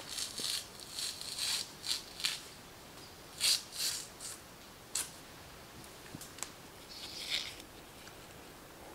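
Lime bast being stripped from young lime trunks: an irregular run of short rustling, crackling tears of bark, a sharp snap about five seconds in, and a longer tearing rasp near the end as a strip is pulled down the trunk.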